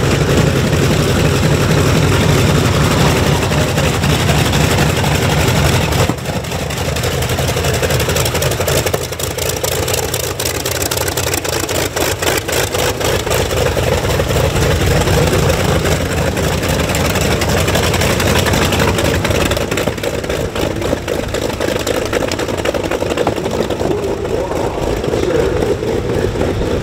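Douglas EA-1E Skyraider's Wright R-3350 18-cylinder radial engine running at low taxi power, loud and close, with a fast steady throb. The level drops slightly about six seconds in.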